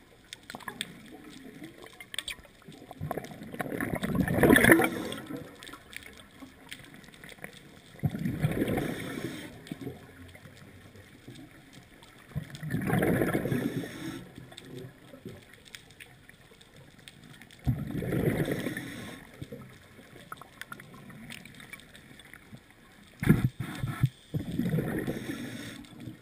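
Scuba diver's regulator exhaust, heard underwater: five bursts of exhaled bubbles, each lasting a second or two, about every four to five seconds, with quiet between breaths. A sharp knock comes shortly before the last burst.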